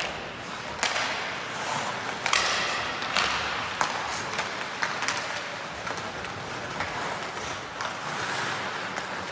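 Ice hockey game play: about ten irregular sharp clacks and thuds of sticks, puck and boards over a steady hiss.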